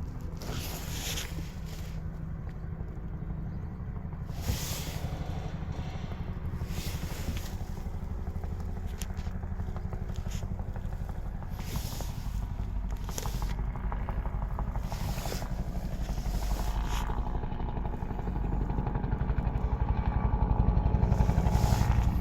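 A vehicle engine running steadily, getting louder near the end, with brief rustling sounds every second or two.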